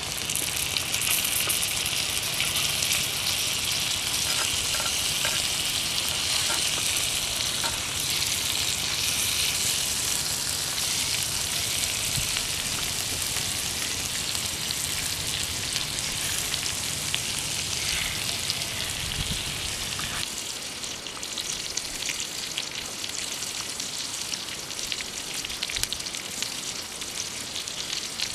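Pig intestines sizzling as they fry on a hot stone slab over a fire: a steady hiss with small pops.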